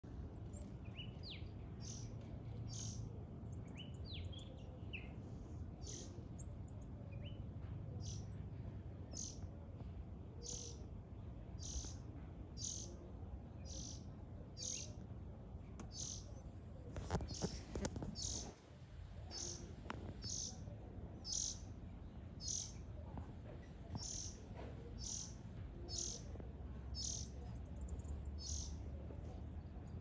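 Baby birds calling with short, high, thin cheeps repeated steadily, about one to two a second, with a few sliding whistled notes in the first few seconds. A brief burst of knocking and rustling comes just past halfway.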